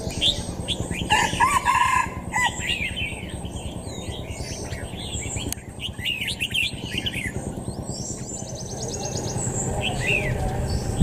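Two caged songbirds calling back and forth in a face-off: quick chirps and whistled notes, busiest in the first few seconds, with a fast trill about nine seconds in.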